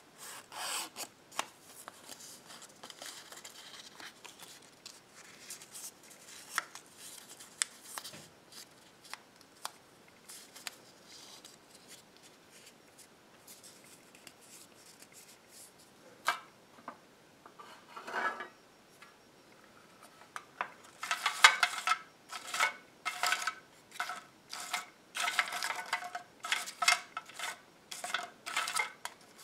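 Small paper slips being folded and creased by hand, soft rustles and fingernail clicks. About twenty seconds in, the folded slips are stirred about inside a metal tin, clattering against it with a bright metallic ring.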